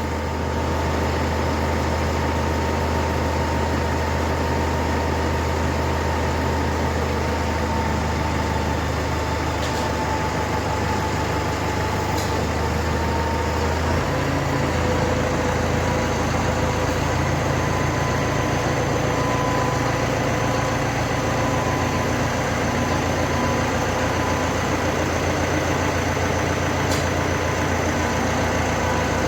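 A tractor engine running steadily, its low note changing about halfway through. There are a few faint knocks.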